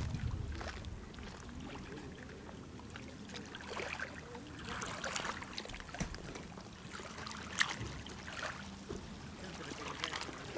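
Small waves lapping against the water's edge of a brim-full reservoir, with irregular soft splashes.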